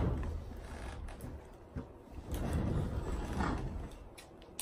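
Handling noise from a foil MRE food pouch being held and worked open, coming as two swells of low, muffled rustling with a few light clicks.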